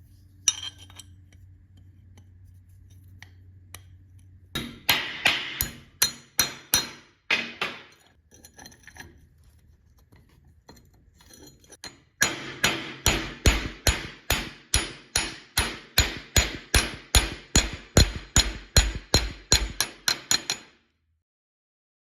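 Forging hammer striking steel on an anvil in steady runs of about two and a half blows a second, each blow ringing. A short run comes about five seconds in and a long run from about twelve seconds, ending suddenly. Before the first run there is a low steady hum.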